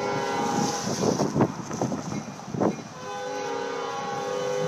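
Air horn of Baldwin RS4TC diesel locomotive #4024, sounding a chord: a blast at the start, then a long held blast from about three seconds in. A few short rushing noises come between the blasts.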